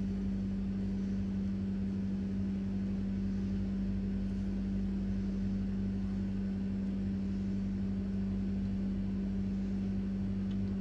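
Steady low machine hum with one strong constant tone, unchanging throughout.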